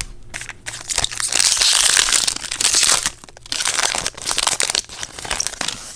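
Foil trading-card pack wrapper crinkling and tearing as it is ripped open, a dense crackle that is loudest from about one to three seconds in.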